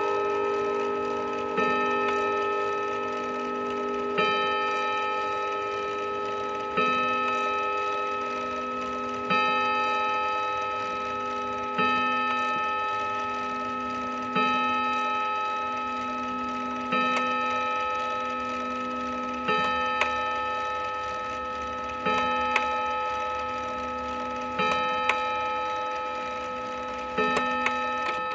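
Hammers of a Sessions two-train chiming clock striking its chime rods, about eleven evenly spaced strikes roughly two and a half seconds apart, each left ringing and dying away. A few small sharp clicks of the movement come in the second half.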